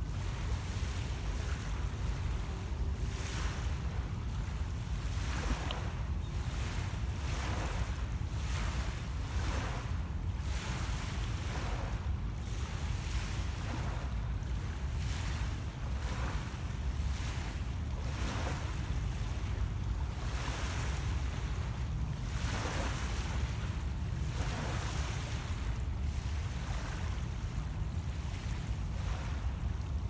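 Small lake waves lapping and washing onto a pebble beach every second or two, over a steady low rumble of wind on the microphone.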